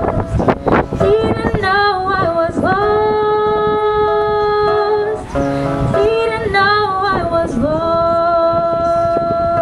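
A female voice singing long held notes that bend and slide between pitches, over a strummed acoustic guitar.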